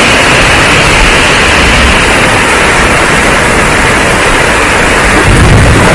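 Heavy rain pouring down, a loud steady hiss. A brief low rumble comes in about five seconds in.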